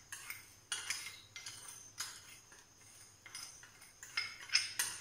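Metal spoon clinking and scraping against a sugar container while sugar is spooned into a mixing bowl: a string of light, irregular taps with a short ring, the loudest near the end.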